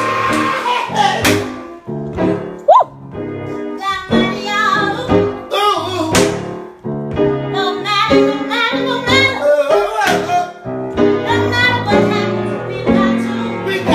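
Gospel music: singing over piano, with a few sharp beats.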